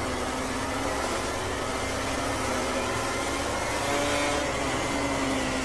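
Racing motorcycle engine running steadily at high revs, its pitch wavering slightly.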